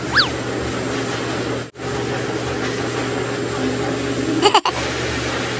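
Pet blow dryer running steadily, blowing air through its hoses to dry a wet puppy's coat. A short high squeak falls in pitch just after the start, and the blower sound cuts out briefly twice.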